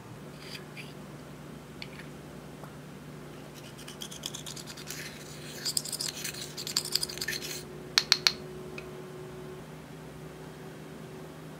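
Eyeshadow being worked into clear slime: a few scattered clicks, then several seconds of scratchy scraping, then three sharp clicks in quick succession a little after the middle.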